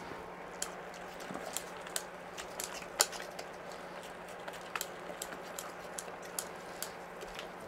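Wire whisk stirring thick mashed potato in a stainless steel saucepan, its wires clicking and tapping irregularly against the pan. A steady low hum runs underneath.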